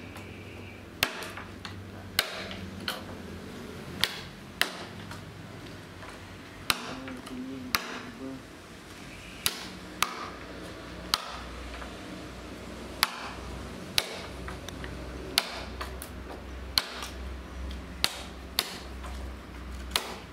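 Hammer striking a chisel to cut a mortise into a wooden beam: sharp single blows at uneven spacing, roughly one a second.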